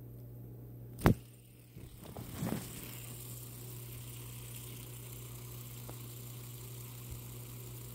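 A sharp knock about a second in, then a handheld fidget spinner's bearing whirring faintly and steadily as it spins at speed.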